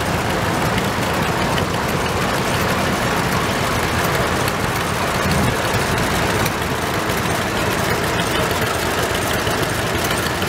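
Antique John Deere two-cylinder tractors running as they drive past at parade pace, their engines chugging with an even rapid beat.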